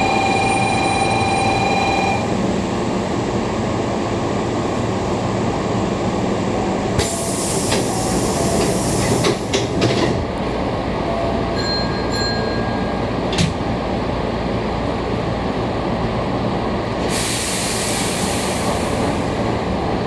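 Hankyu 6000 series electric train standing at a platform, its onboard equipment giving a steady hum. A steady tone stops about two seconds in, and compressed air hisses out twice, around seven seconds in and again near the end, with a few clicks between.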